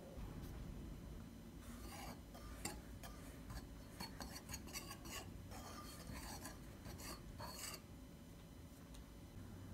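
Wire balloon whisk stirring dry flour, sugar and baking powder in a glass bowl: a quick run of scratchy strokes and light ticks of the wires against the glass, starting about two seconds in and stopping about two seconds before the end.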